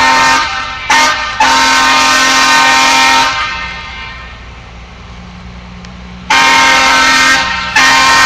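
Air horn of a hi-rail maintenance truck sounding for a grade crossing: two short toots, a long blast of about two seconds, then after a pause about three seconds later, another long blast and a second one starting near the end. The chord is several steady notes at once, and the truck's engine can be heard running low in the gap.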